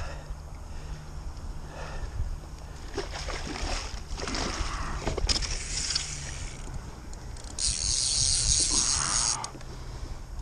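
Water splashing and sloshing beside a kayak, over a steady rumble of wind on the microphone; a louder hissing splash lasts about two seconds near the end.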